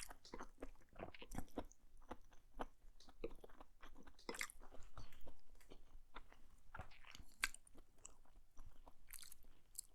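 Close-miked chewing of food: a steady, irregular string of soft, wet mouth clicks and smacks, a few a second.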